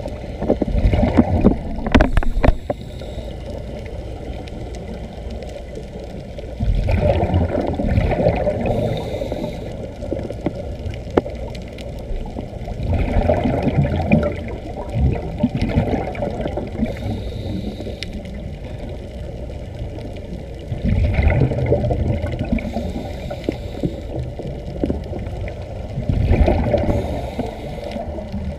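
Underwater sound heard through a camera's waterproof housing: a low, muffled rumble with louder surges of bubbling and water movement every six seconds or so.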